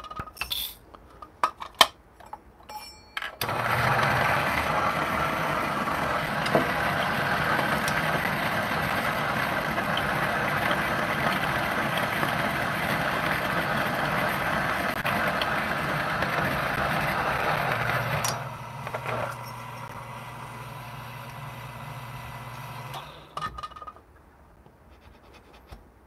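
A few light clinks as coffee beans are tipped into the hopper, then a Niche Zero conical burr grinder grinds the light-roast dose for about 15 seconds. The grinding then gives way to a quieter, even motor hum as the burrs run empty once the beans are through, and the motor stops about 23 seconds in.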